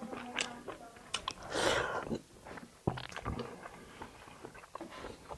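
Close-miked mouth sounds of a person eating: chewing and biting with scattered wet clicks, and one longer noisy burst about a second and a half in.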